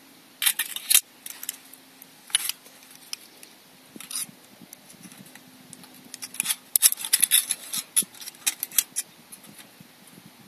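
Camp stove parts being handled: irregular clicks and rattles, a few at first, then a busy run of them from about the middle until near the end.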